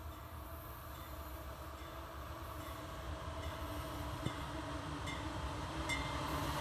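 Approaching diesel freight locomotive, its engine hum and rail noise growing steadily louder, with a few faint clicks in the second half.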